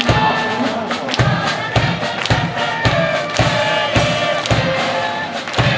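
A university cheering section's band plays while the crowd sings a cheer song together, with a drum beating steadily about twice a second.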